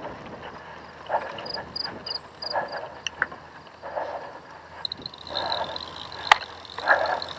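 Cyclocross bike rolling fast over bumpy grass, rattling, with a sharp knock about six seconds in. Over it, the racer breathes hard, about one heavy exhale every second and a half.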